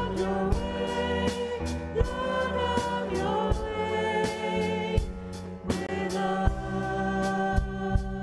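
Live worship band playing a congregational song: women's voices singing over drum kit, bass guitar and electric piano, with a steady drum beat of about two hits a second.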